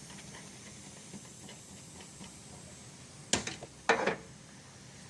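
Two sharp metallic clanks, the first about three seconds in and the second a moment later, over faint steady background noise: tools or fittings knocked while the air-conditioning system is pressure-tested.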